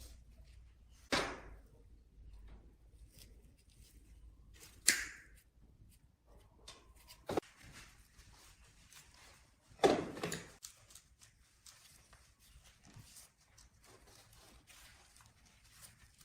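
Four separate knocks and clunks, as if objects are being set down or handled, spaced a few seconds apart. The knocks about five and ten seconds in are the loudest.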